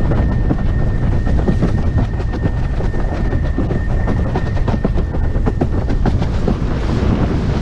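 Starboard iSonic 145 slalom windsurf board planing fast over chop with a steady high whistle, which stops about six seconds in. Under it the hull clatters and slaps rapidly on the water, with wind noise on the microphone.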